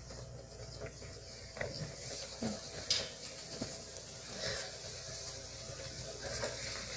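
Quiet room tone with a few faint, scattered clicks and taps as a small candle is handled and used to light a chalice candle.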